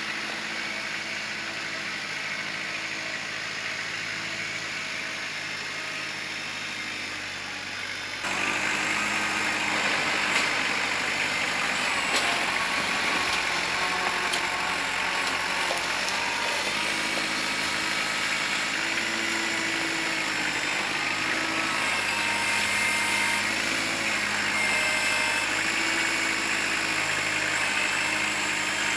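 Kubota L4600 tractor's diesel engine running with the BH92 backhoe. It gets louder suddenly about eight seconds in, and after that its pitch keeps rising and falling as the engine is loaded and eased off.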